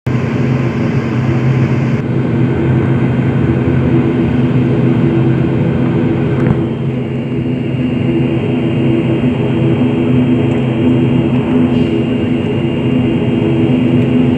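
ATR 72's twin turboprop engines running during taxi, heard from inside the cabin beside the wing: a loud, steady drone with several low tones. About six seconds in the hiss above it lessens and a thin high whine comes in.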